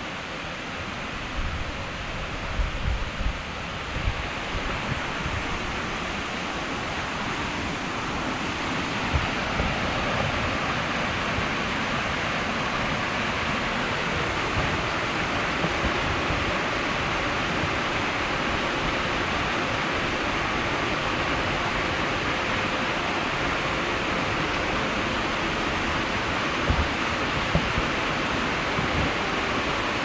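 Small waterfall cascading over rocks into a pool, a steady rush of water that grows a little louder about eight seconds in, with a few low bumps of wind or handling on the microphone.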